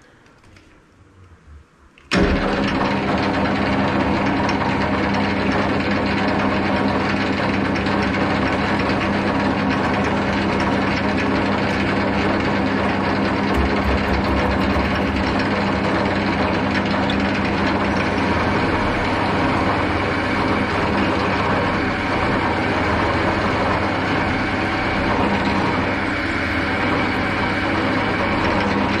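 Hafco AL-320G metal lathe switched on about two seconds in, then running steadily with a low hum, while a twist drill in the tailstock is fed through the bore of the spinning part.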